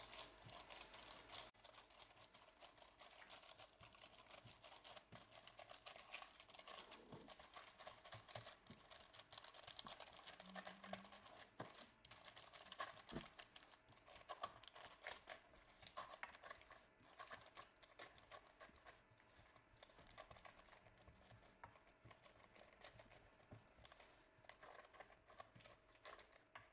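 Faint crinkling of parchment paper and soft irregular tapping as hands press pastry dough into a round baking tin, shaping the base and sides.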